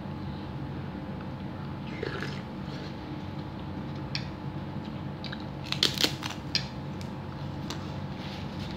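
A person chewing a mouthful of soto ayam with rice, with a cluster of crisp crunches about six seconds in, over a steady low hum.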